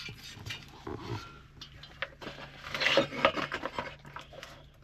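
Scraping and knocking of a Chinese diesel heater's reassembled core being pushed back into its case, a run of irregular rubs and clicks that is loudest about three seconds in.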